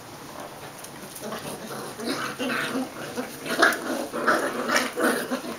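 Welsh Springer Spaniels playing rough with their puppies, giving a string of short growls and yelps. The sounds start about a second and a half in and are loudest in the second half.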